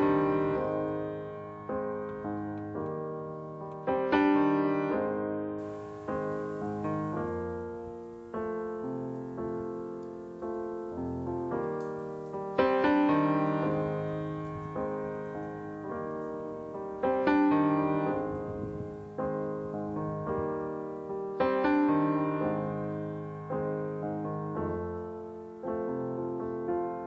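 Background solo piano music: sustained chords and melody notes that strike and fade, with a stronger chord about every four seconds.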